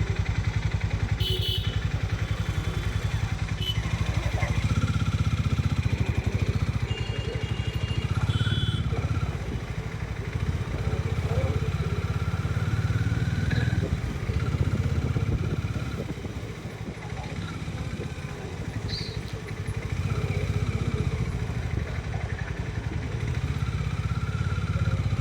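Harley-Davidson X440's single-cylinder engine running while the motorcycle is ridden, with road and traffic noise. The engine note drops for a few seconds past the middle, then rises again.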